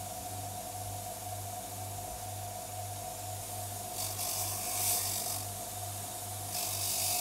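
A steady pulsing hum with a faint steady tone above it. Two bursts of hiss come over it, one about four seconds in and a longer one near the end.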